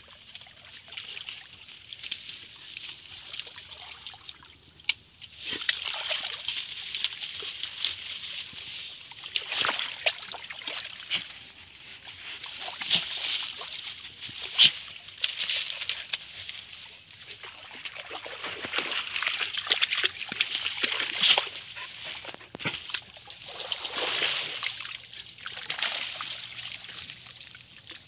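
A small dog wading through a shallow, muddy ditch, its steps sloshing and splashing the water in uneven bursts.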